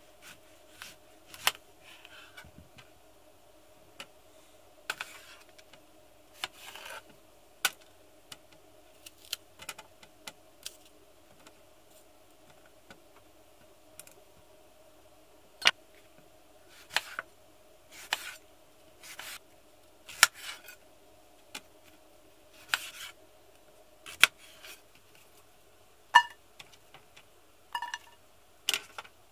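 Kitchen knife cutting an apple on a plastic cutting board: irregular sharp taps and clicks as the blade goes through and strikes the board, over a steady faint hum. Near the end, two short ringing clinks from an enamel bowl as the slices are gathered.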